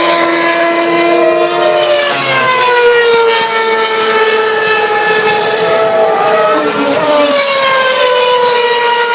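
Formula 1 car engine running at high revs, its pitch sliding slowly down, rising briefly near the end, then falling again.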